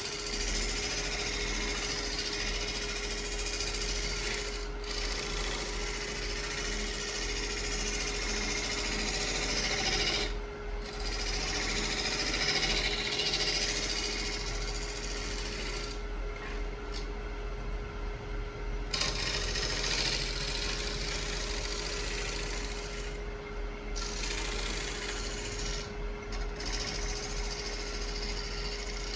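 Wood lathe running with a steady motor whine while a gouge cuts the spinning oak burl, a continuous hissing, scraping cut that drops out briefly several times as the tool is eased off.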